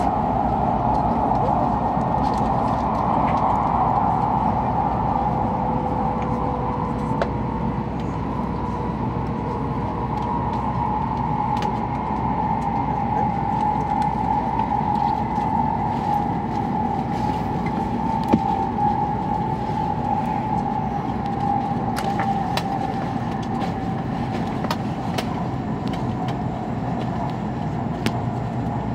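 Cabin running noise of an E7 series Hokuriku Shinkansen at speed: a steady rumble and rush with a whine that slowly falls in pitch, plus a few faint clicks and one short knock about two-thirds of the way through.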